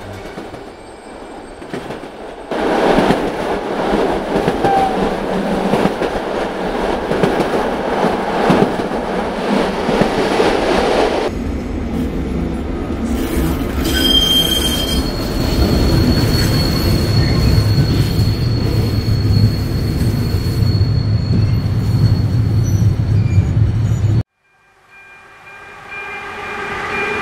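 Train running: a steady rumble of wheels on track, with a thin high squeal held through the middle. Near the end it cuts off suddenly, and a horn fades in.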